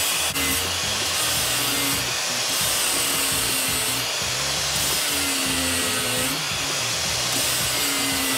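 Milwaukee angle grinder with an abrasive disc grinding a metal spacer, running steadily under load while it takes about 1/32 inch off the part. Background music plays underneath.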